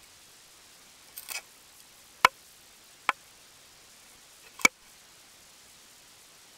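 Sharp knocks and clicks picked up by an underwater camera on the fishing line, over its steady hiss: a short rattle a little over a second in, then three single sharp knocks, as a softshell turtle bites at the cut bait and bumps the rig.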